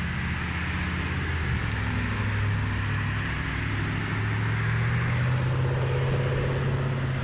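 Slow city traffic on a wet road: a steady low engine hum from passing cars, over an even hiss of tyres and rain on wet asphalt. The engine hum's pitch steps up a little about a second and a half in, and the whole sound swells slightly toward the middle.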